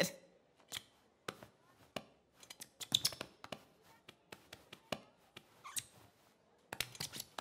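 Cartoon sound effects: a run of soft, uneven clicks and creaks as a stiff, jointed arm is bent into a pointing pose.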